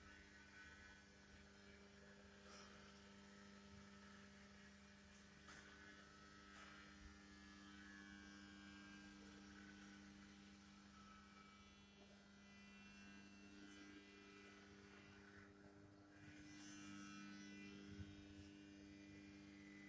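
Near silence: a faint, steady low hum of room tone.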